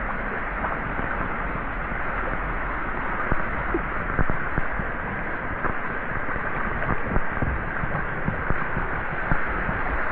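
Water-slide channel water rushing and splashing right at the rider, a steady rush with scattered small splashes and knocks.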